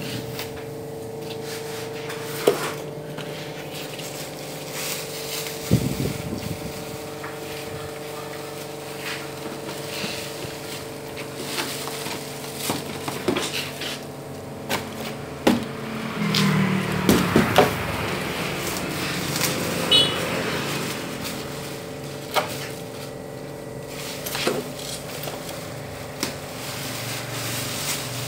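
Scattered knocks and clicks of an air conditioner's parts and packaging being handled during unboxing, with a denser stretch of rustling about two thirds of the way through, over a steady low hum.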